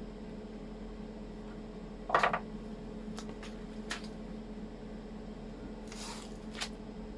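Hobby MIG welder humming steadily while switched on but not welding. A sharp clatter comes about two seconds in, then a few light ticks, and a short hiss with a click near the end.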